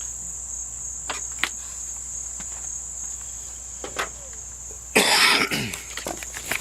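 Sparse light clicks and taps of hand work on metal parts over a steady high-pitched whine, then a person coughing once, loudly, about five seconds in.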